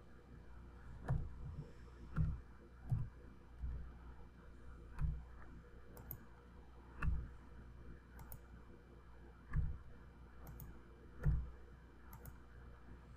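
Scattered, separate clicks of a computer mouse and keyboard at a desk, about eight louder ones, each with a dull knock, over a faint steady hum.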